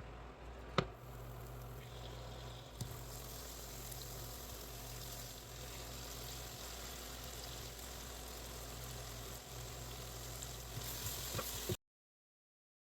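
Food frying in hot oil in a pan, a steady sizzle. There is one sharp knock a little under a second in, and the sound cuts off suddenly near the end.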